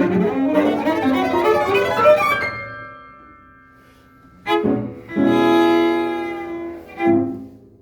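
Cello and piano duo playing a fast passage that breaks off on a ringing chord, then closing with three chords: a short one, a long held one, and a short final one that dies away.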